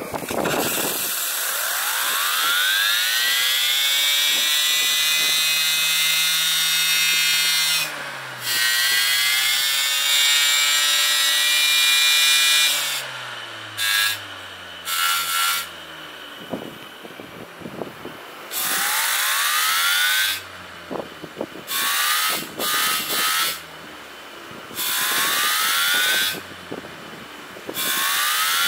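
Small homemade model steam turbine spinning up on steam, a whine with steam hiss that climbs in pitch and holds high for about ten seconds, then runs down. After that it is given a series of short blasts of steam, each a quick rising whine that drops away.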